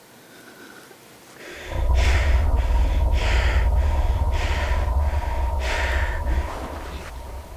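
Heavy breaths or snorts, about five over four seconds, starting about two seconds in, over a deep low rumble and a steady mid-pitched drone, as in horror-film sound design; it eases off near the end.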